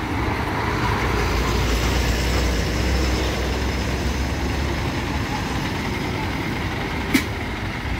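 A loaded diesel goods truck drives close past with a deep engine rumble that eases off about five seconds in as it moves away. A single sharp click comes near the end.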